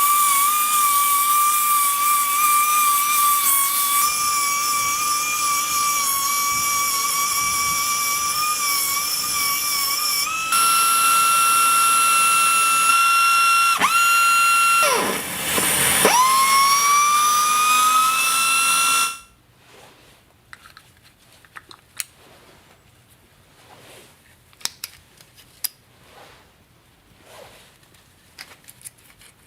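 Nitto Kohki Baby Belton BB-10B pneumatic belt sander's air motor running with a high steady whine. Its pitch shifts about ten seconds in as the belt direction is switched between forward and reverse. The motor cuts out briefly twice and spins back up, then stops. After that come faint clicks and small knocks of the belt being changed by hand.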